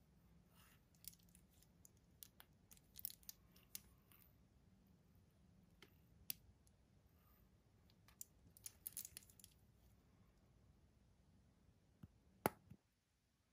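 Stainless steel bracelet and fold-over clasp of a Seiko Sportura Kinetic chronograph clicking and clinking faintly as the watch is handled, in scattered clusters of small clicks, with one sharper click near the end.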